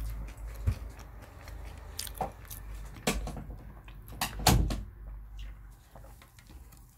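Paper food wrapper and a cardboard chicken box being handled, with crinkling rustles and a few knocks. The loudest comes about four and a half seconds in.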